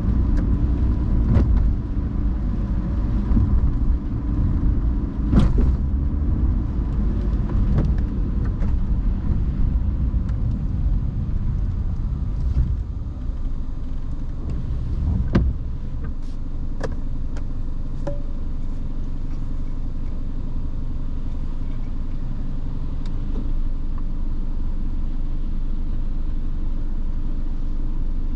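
Car driving on rain-wet roads: steady low road and tyre rumble with a few sharp knocks in the first half. The rumble eases to a quieter, even level about halfway through.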